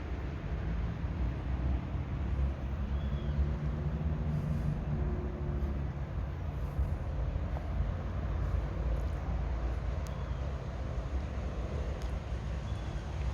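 Low, steady rumble of a motor vehicle's engine, with a few faint high chirps now and then.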